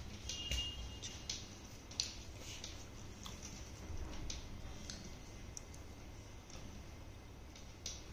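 Faint sharp ticks from an Ajina quartz wall clock's movement as its second hand steps, mixed with light clicks from handling the plastic clock.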